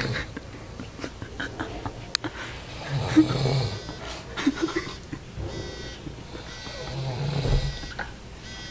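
A person snoring in sleep, with two deep, rough snores about four seconds apart.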